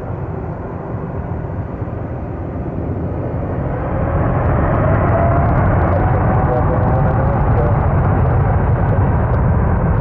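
Boeing 747-8's four jet engines spooling up to takeoff thrust, heard from a distance: a low rumble that grows louder about four seconds in and then holds steady, with a faint whine over it.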